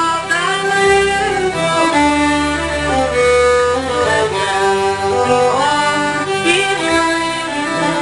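Fiddle bowed through a melody, with notes sliding into one another, over deep held accompanying notes that change every second or two.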